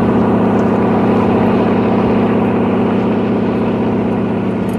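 Propeller aeroplane engine running with a steady, even drone and a fast pulsing throb.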